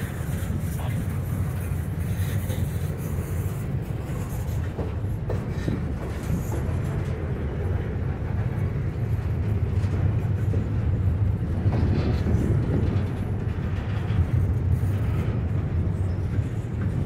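Double-stack intermodal freight train's well cars rolling past: a steady low rumble of steel wheels on rail, with scattered light clicks.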